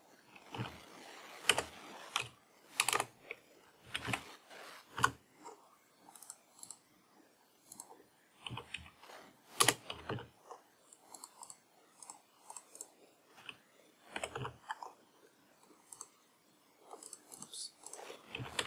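Computer keyboard keys tapped and mouse buttons clicked at an irregular pace: single sharp clicks with pauses between them, the loudest about two and ten seconds in.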